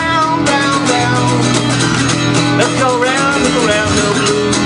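Blues played on acoustic guitar with a steady strummed rhythm, and a harmonica playing bending, wavering notes over it.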